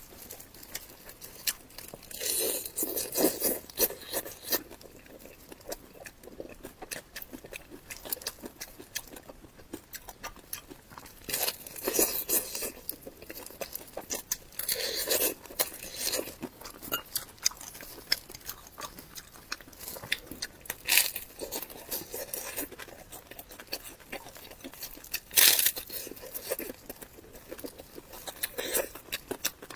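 Close-miked eating sounds: bites and crunchy chewing coming in irregular bursts, with quieter pauses between them.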